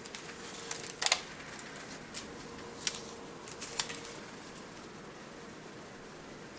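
Planner paper and sticker sheets being handled: a handful of short, sharp clicks and crackles, the loudest about a second in, then quiet room tone for the last couple of seconds.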